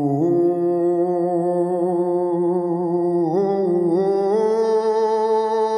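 Background music: a singer holding long, wavering vocal notes over a low steady drone, the melody stepping up in pitch about three seconds in and again a second later.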